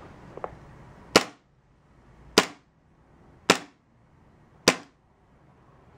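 Four sharp single gunshot-like cracks, evenly spaced a little over a second apart, each dying away quickly.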